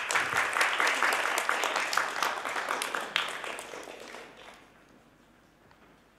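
Audience applauding, a dense patter of clapping that thins out and dies away about four and a half seconds in.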